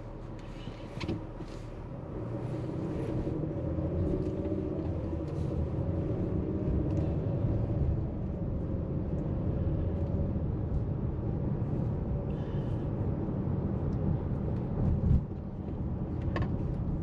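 Engine and road noise of a car being driven, heard from inside the cabin: a steady low rumble that grows louder about two seconds in. A brief thump near the end.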